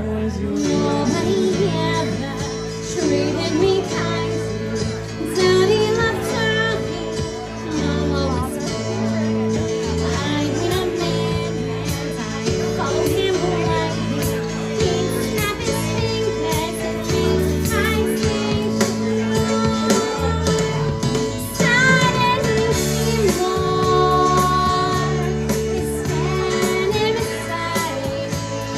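Karaoke: a woman singing into a microphone over a music backing track.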